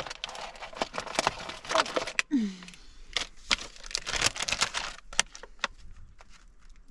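Irregular clicks and crinkling from food being prepared by hand: toppings, packaging and a tortilla wrap being handled, with a short falling tone about two seconds in.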